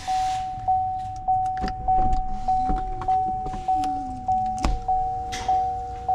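Power sunroof motor of a 2016 GMC Yukon XL running: a whine that wavers in pitch, a clunk about three-quarters of the way in, then a steadier higher whine to the end. Throughout, the cabin warning chime dings evenly, about once every 0.6 seconds.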